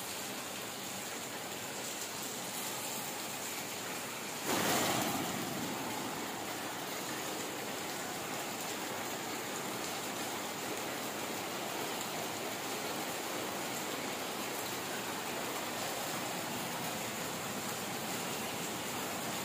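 Steady rain falling, an even hiss with no pauses. About four and a half seconds in there is a sudden louder rush that dies away within a second or so.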